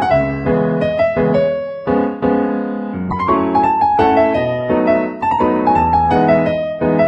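Background piano music: a gentle melody of single struck notes over low chords, each note fading after it is played.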